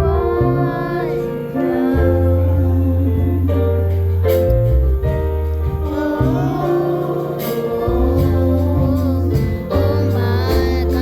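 Gospel song with a lead singer, backing voices and instruments, including a sustained bass line.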